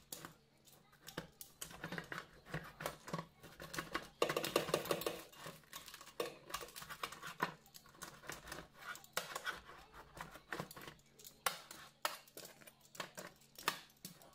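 Wheel pizza cutter slicing through a crisp-crusted pizza on a metal baking tray: irregular crunching and clicking as the crust is cut.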